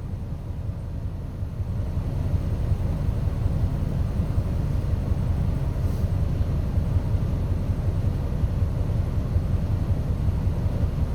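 Steady low rumble of a bus's engine and running gear heard from inside the bus, growing slightly louder over the first couple of seconds.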